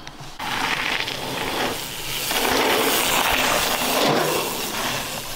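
Mountain bike tyres rolling over the loose gravel and packed dirt of a berm turn, a rushing noise that starts suddenly just under half a second in and is loudest in the middle as the bike carves past.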